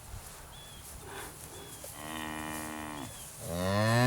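Heifers mooing: one steady moo about two seconds in, then a much louder call near the end that rises in pitch.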